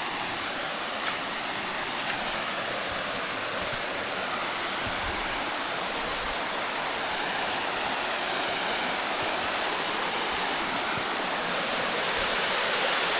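Steady rush of a rainforest waterfall, growing a little louder near the end, with a couple of faint clicks early on.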